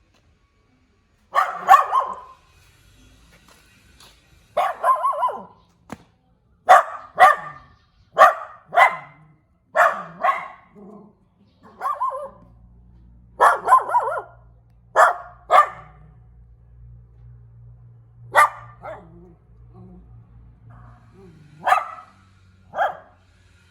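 A small dog barking, about seventeen sharp barks, often two in quick succession, spread out with pauses; the barks thin out toward the end.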